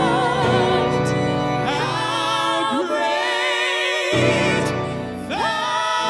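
Church choir singing a hymn with instrumental accompaniment, voices held with vibrato.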